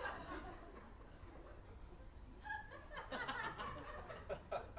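Audience laughing, dying down and then picking up again about two and a half seconds in.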